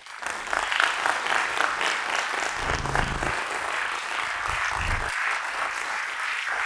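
Audience applauding steadily, a dense patter of many hands clapping that starts abruptly and keeps up at full strength.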